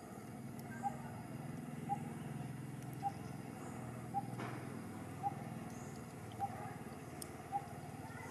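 A bird repeating one short, clear note about once a second, evenly spaced, over a steady low hum.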